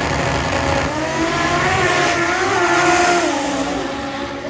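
Two drag racing cars launching off the line and accelerating hard down the strip at full throttle, the engine pitch rising through the run. The sound peaks about three seconds in and fades as the cars pull away.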